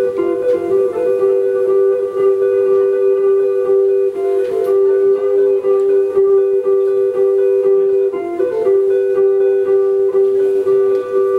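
Live improvised ambient noise music from an ensemble of electric guitar, keyboards and electronics: a steady two-note drone with shorter pitched tones flickering in and out above it.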